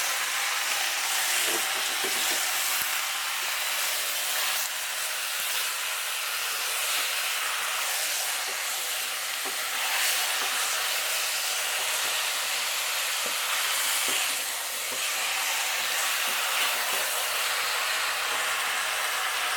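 Chicken pieces sizzling in hot oil in a cooking pot, a steady frying hiss with occasional faint clicks and scrapes of stirring.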